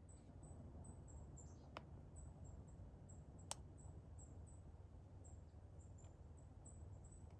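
Near silence in the woods: an insect chirps faintly, a short high chirp about three times a second. A sharp click sounds about three and a half seconds in, with a fainter one a little before two seconds.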